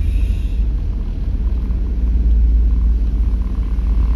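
A vehicle being driven, heard as a steady low rumble.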